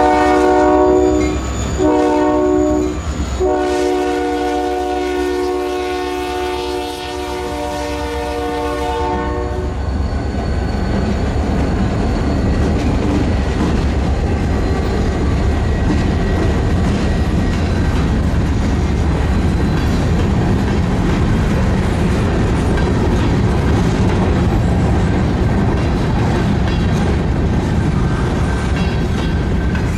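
Freight train locomotive's multi-chime air horn sounding, its blast broken by two short gaps, then cutting off about nine and a half seconds in. After that comes the steady rumble of the train rolling by, with wheels clicking over the rail joints.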